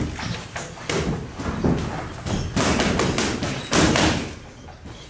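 Everlast boxing gloves punching leather focus mitts: a string of sharp thuds in quick combinations, thinning out near the end.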